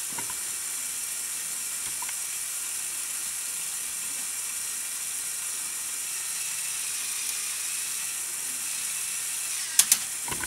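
Plastic Lego Technic mechanism clicking faintly as the truck's rear tow bar is slid out by hand, over a steady hiss. Two or three sharper clicks come near the end.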